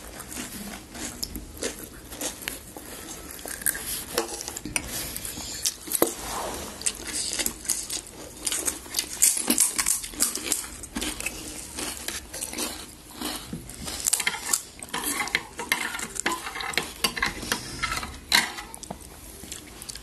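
Irregular clinks and knocks of a spoon and plates, with crisp crackles, as panipuri are filled and eaten.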